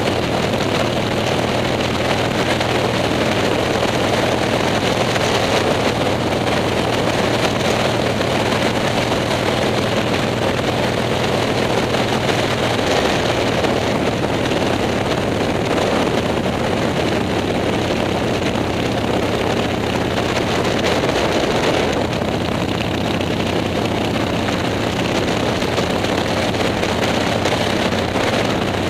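Motorcycle engine running steadily at cruising speed, heard from on board, with wind rushing over the microphone.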